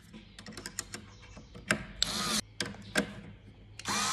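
Metal bracket parts clicking and knocking as they are handled and fitted. A cordless drill with a socket bit whirs briefly about halfway through, then runs again near the end, driving the mounting bolts.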